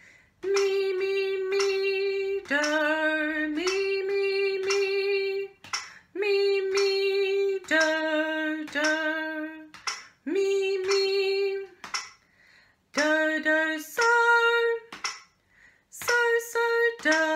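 A woman singing a sight-singing exercise in solfège syllables (do, mi, so), holding each note for a second or two at a few different pitches, with short breaks between phrases.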